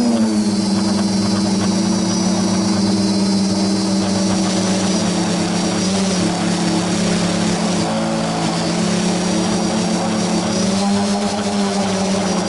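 Multirotor drone's electric motors and propellers running, heard from the drone's own camera: a steady hum with a thin high whine above it, dipping slightly in pitch at the start and rising a little near the end.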